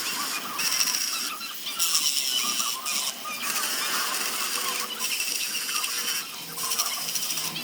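Sanding on a zelkova wood basket: a steady high hiss with a faint whine, broken by short gaps several times.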